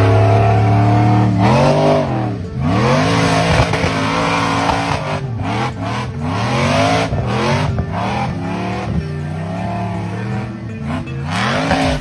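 A vehicle engine revved hard again and again, its pitch climbing and dropping roughly every second or two.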